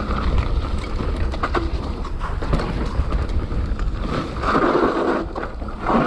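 Wind buffeting the microphone as a mountain bike rolls fast down a bumpy dirt trail, the bike rattling and knocking over the ruts, with a louder rough noise about four and a half seconds in.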